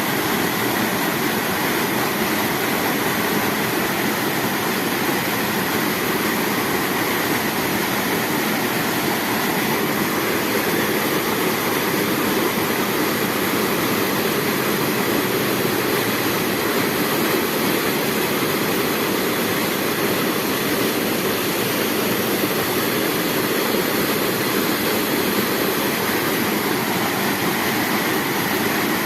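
A waterfall on a river, its water rushing in a steady, unbroken noise.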